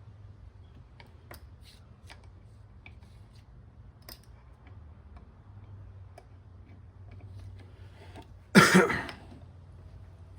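Faint scattered clicks and taps of small parts being handled, then a single loud, short cough from a man near the end.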